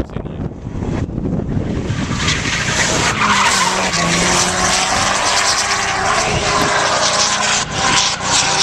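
A drift car sliding with its tyres screeching and its engine revving hard, growing louder about two seconds in.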